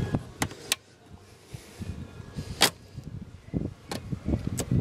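Hose-clamp pliers and a spring hose clamp being worked onto a hose in an engine bay: about five sharp metallic clicks spread through, with softer knocks of handling between them.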